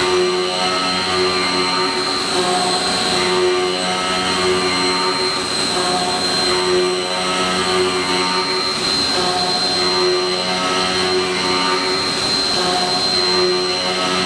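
Haas ST-30BB CNC lathe running: a steady mechanical hum and whine with a constant high tone, and lower tones that swell and fade every few seconds.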